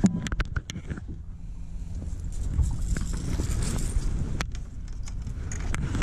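Clicks and knocks from handling a caught bass and gear on the boat's deck: a quick cluster in the first second, then single sharp knocks later, over a steady low rumble.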